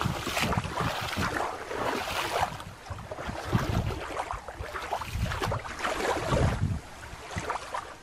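Wind buffeting the microphone: an uneven rushing noise with irregular low thumps, mixed with the noise of someone moving through shallow water and wet grass.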